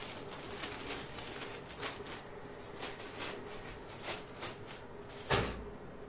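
Kitchen handling noises: scattered light clicks and taps, with one louder knock about five seconds in.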